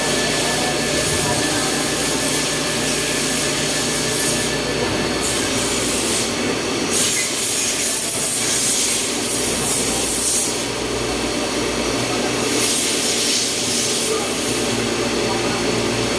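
CNC milling machine cutting: a steady machine hum with several held tones, under a hissing cutting noise that swells and drops every few seconds.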